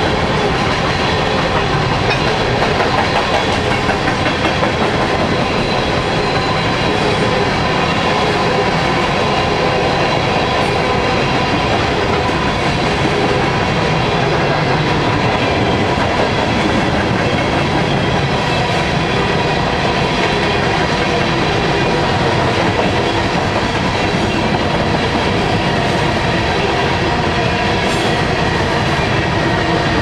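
Freight train of empty covered hopper cars rolling past: a steady rumble of steel wheels on rail with clickety-clack over the rail joints. Faint steady ringing tones ride over it.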